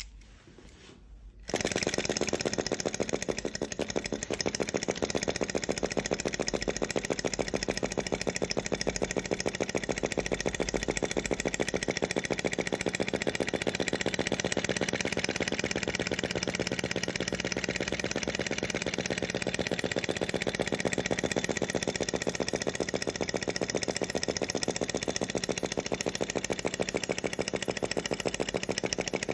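Small brass model hot-air (Stirling-type) engine running, a fast, steady mechanical clatter that starts abruptly about a second and a half in.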